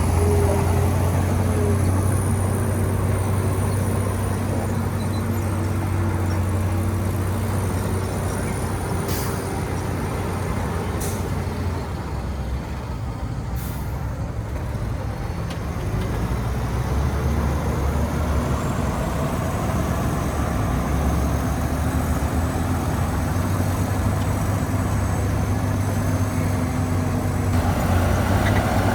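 Diesel engines of heavy earthmoving machinery, bulldozers and dump trucks, running under work, a low steady drone with fainter wavering tones above it.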